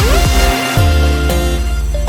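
Electronic background music with a heavy bass line and sliding synth notes.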